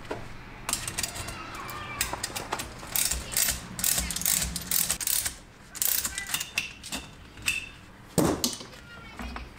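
Ratcheting wrench clicking in short, irregular strokes as the threaded rods of a coil spring compressor are backed off to release the spring onto a strut.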